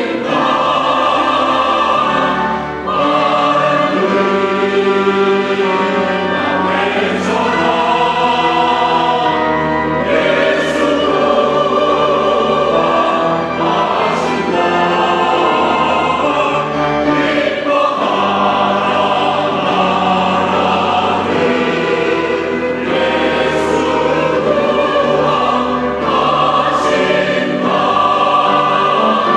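Church choir singing an anthem in full chords, held notes changing every second or two.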